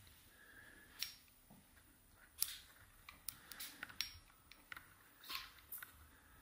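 Faint, irregular clicks and light knocks of handling noise from a handheld camera and lens. The sharpest click comes about two and a half seconds in, with a cluster between three and four seconds.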